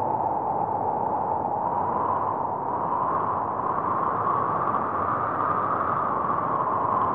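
A steady rushing noise, like wind, whose pitch slowly rises and then sinks again near the end.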